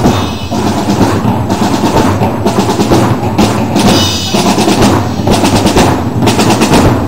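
Parade drum band of snare and bass drums playing a steady marching beat, with rolls on the snares.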